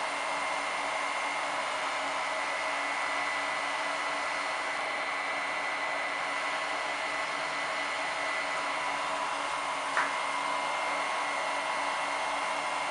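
Cooling fans of the battery chargers and their switching DC power supplies running steadily under a charging load, a whirring hiss with a thin steady whine. A faint click about ten seconds in.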